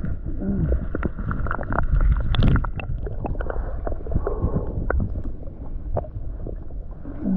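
Water sloshing and gurgling around a GoPro held just under the surface, heard muffled, with scattered knocks and clicks and a louder surge about two seconds in.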